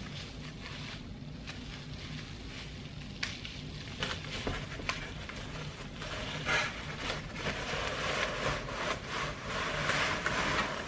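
Packaging rustling and crinkling as a parcel is unpacked, with scattered clicks and busier, louder handling in the second half, over a low steady hum.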